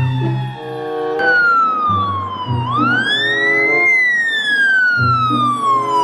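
Ambulance siren in a slow wail, its pitch gliding down, sweeping back up near the middle, and falling again before rising at the end. Background music with a simple melody runs underneath.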